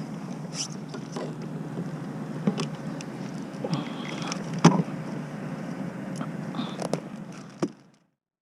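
Handling noises aboard a fishing kayak: scattered clicks and knocks of gear against the hull, over a steady low rumble of wind and water. The loudest knock comes about halfway through, and the sound cuts out abruptly just before the end.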